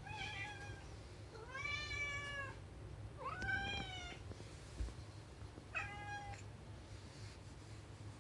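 Domestic cat meowing four times, drawn-out calls that rise and then fall in pitch, the second and third the longest. A short dull thump comes between the third and fourth meows.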